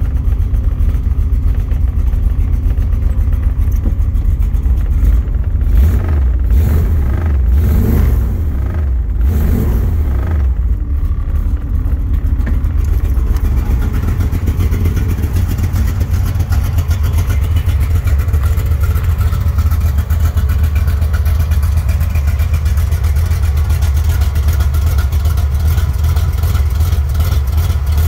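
A 1969 Chevrolet Camaro's engine running, with a deep low rumble. Its revs rise and fall a few times about six to ten seconds in, then it settles to a steady idle, heard near the end from behind the car at the exhaust.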